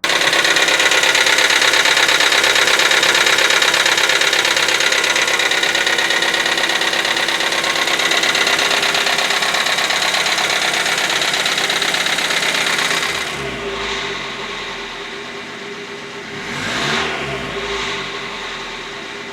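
Hyundai Accent 1.6 petrol engine running with a loud, rapid tapping knock, the sign of noisy hydraulic valve lifters. About 13 seconds in, the sound drops and the engine is revved up and down.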